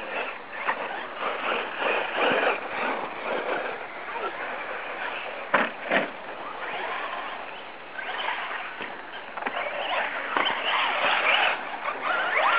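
Electric radio-controlled trucks, a Traxxas Slash 4x4 among them, driving on a dirt track: motor whine rising and falling with the throttle over tyre noise on the dirt, with two sharp knocks a little before halfway.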